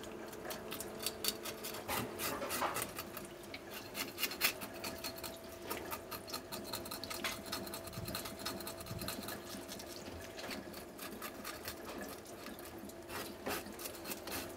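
Knife tip scraping leftover scales from along the fins of a kasago (scorpionfish): a dense, irregular run of short rasping scrapes, with a thin stream of tap water running onto the fish.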